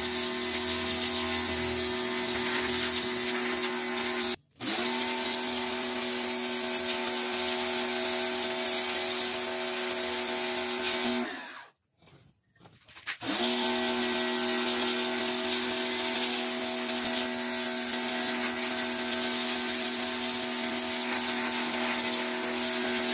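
Pressure washer running steadily, its water jet hissing against aluminum casts. It stops very briefly about four seconds in and again for about two seconds in the middle, and each time its motor winds back up with a rising pitch as spraying resumes.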